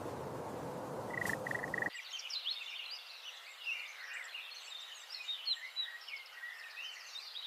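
A short rushing noise with a few brief high tones, then, cutting in suddenly about two seconds in, a dense chorus of many small birds chirping and twittering.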